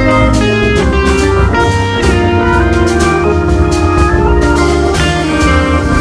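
Background music with sustained melodic notes over a steady beat.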